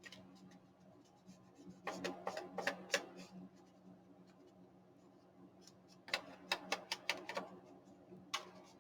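Paper pieces and journal pages being handled and slid on a tabletop: two short bouts of rustling and light taps, about two seconds in and about six seconds in, over a faint steady hum.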